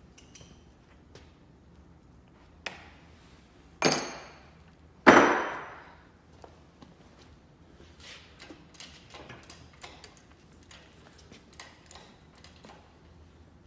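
Two loud ringing metallic clanks, a little under four seconds and about five seconds in, each dying away over about half a second, with lighter clicks and taps in the second half.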